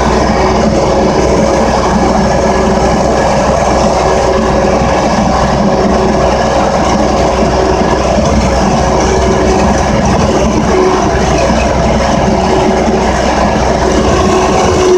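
Engine of a snow-plowing machine running steadily as it drives over snow, a constant loud drone with a steady tone over it.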